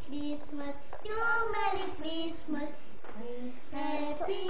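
A child singing a melody in short notes, each held at a steady pitch.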